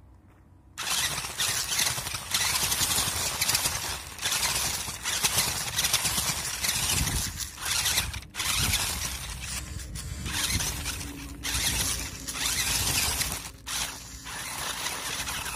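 RC off-road truck driving over gravel and dirt, heard from a camera mounted on it: a noisy mechanical rattle and grind from its drivetrain and tyres. It starts about a second in, then surges and eases in bursts with brief drops.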